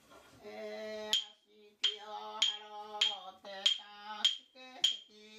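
An elderly woman chanting a prayer in a steady, held voice while beating a wooden block with a stick. The sharp knocks start about a second in and come in an even beat, about one every 0.6 seconds.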